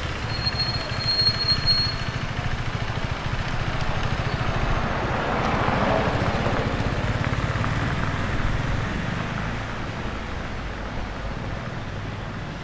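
City street traffic rumble, swelling as a Lunaz electric-converted 1961 Bentley passes close by about halfway through and then fading as it moves off. The passing sound is mostly tyre and road noise, with no engine note from the electric car itself.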